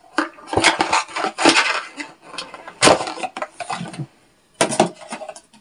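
A cardboard gift box and its contents being handled: a run of rustles, scrapes and knocks that pauses about four seconds in and starts again briefly near the end.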